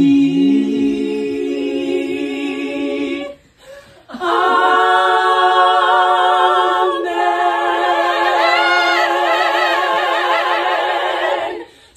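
A small group of women singing a cappella in harmony: a held chord ending the line "our only", a brief breath about three seconds in, then a long sustained "Amen" chord with vibrato that cuts off just before the end.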